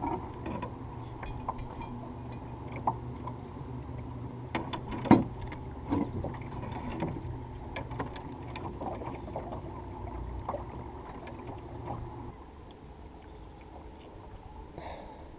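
Metal chain and rope being handled aboard a small fibreglass dinghy: irregular clinks and knocks, the sharpest about five seconds in, over a steady low hum that stops about twelve seconds in.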